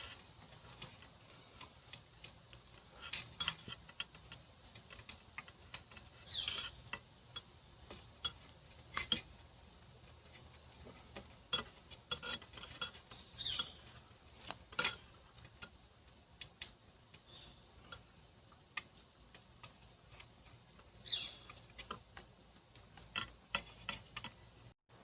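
Faint, irregular small clicks and taps from a magnetic cable-routing guide being worked through a mountain bike's frame tube, as its ends are coaxed to find each other inside the frame.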